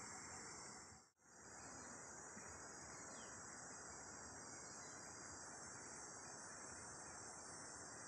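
Steady high-pitched chorus of insects chirring, with an even faint hiss beneath and a few faint short falling chirps. The sound drops out briefly about a second in.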